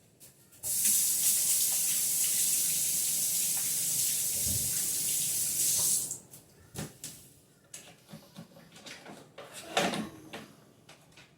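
Kitchen tap running for about five seconds, starting and stopping abruptly, followed by a few light knocks and clatter.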